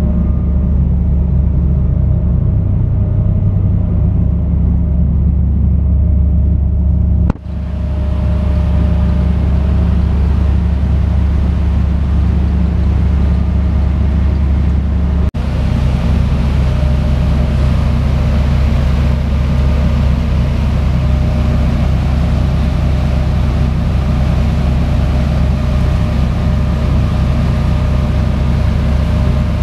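A fishing party boat's engine running steadily under way, a loud, even low drone with the rush of the wake over it. The drone breaks off for an instant twice.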